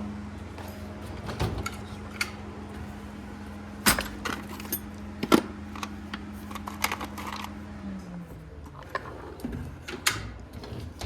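Clinks and knocks of small metal objects being handled, over a steady hum that slides down in pitch and stops about eight seconds in.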